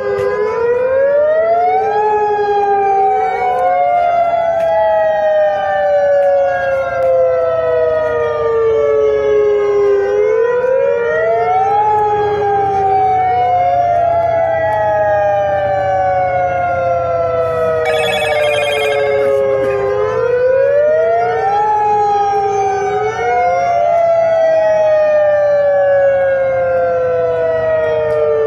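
Outdoor tsunami warning sirens wailing. Each cycle rises quickly in pitch, then falls slowly over about eight seconds and repeats about every ten seconds, with several sirens overlapping out of step.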